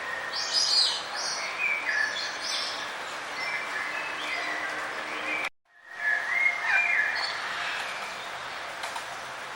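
Several small songbirds chirping and trilling in quick, high calls over a steady background hiss. The sound cuts out completely for about half a second just past halfway, then comes back.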